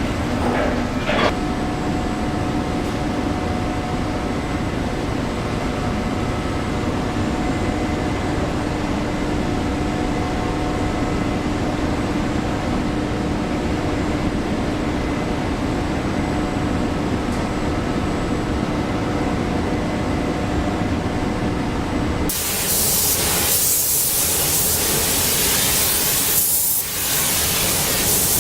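Steady machine hum on a car-factory production line, with a few held tones and a single click about a second in. About 22 seconds in it cuts abruptly to a loud, steady hiss.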